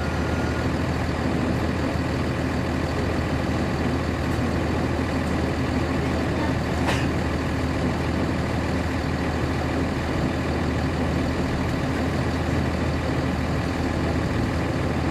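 Cabin sound inside a 1999 NovaBus RTS transit bus, its Cummins ISC diesel engine running steadily at one unchanging pitch. A single sharp click comes about seven seconds in.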